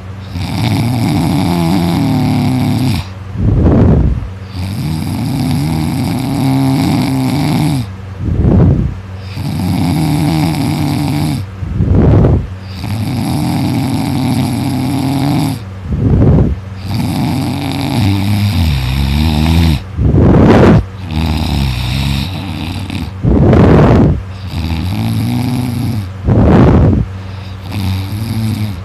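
A person snoring loudly in deep sleep: a long snore of about three seconds, then a short, louder surge, repeating evenly about every four seconds.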